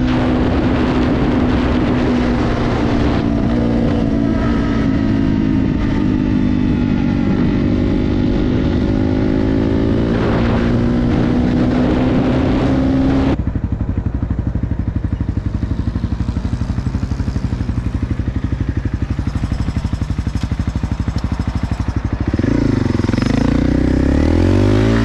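Honda CRF250L's single-cylinder engine running while riding, its pitch drifting up and down with road speed. About halfway through the sound changes abruptly to a lower, pulsing engine note.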